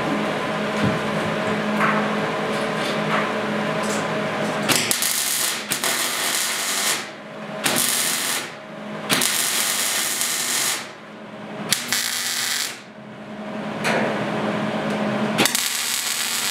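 MIG welder arc crackling in a string of separate bursts of one to two seconds each, with short pauses between them, while plug welds are laid into the sheet-steel inner side of a pickup box. For the first few seconds, before the welding starts, there is a steady hum with a few clicks.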